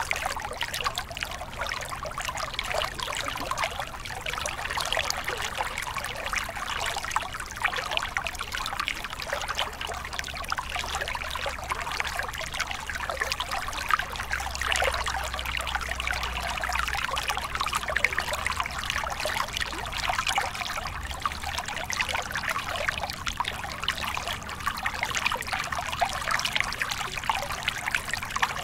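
Small stream cascading over mossy rocks into a pool: a steady splashing, trickling rush of water.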